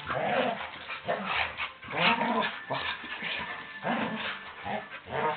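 Two dogs play fighting, growling and yipping in short, irregular bursts.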